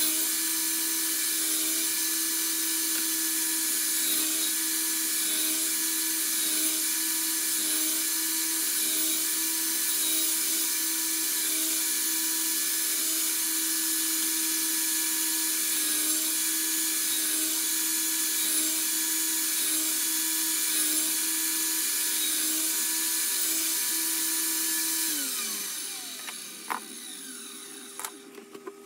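Router in a router table running steadily with a high-pitched whine. It is switched off about 25 seconds in and winds down with a falling pitch, followed by a few clicks near the end.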